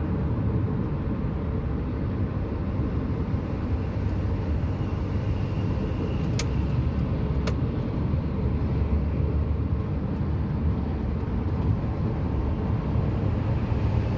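Interior noise of a Lada Granta on the move: a steady low drone from the engine, gearbox and tyres. Two short sharp clicks come about a second apart midway through.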